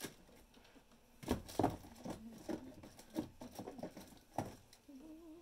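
A run of irregular knocks and taps, about a dozen over three seconds, from someone moving about and handling things in a small room.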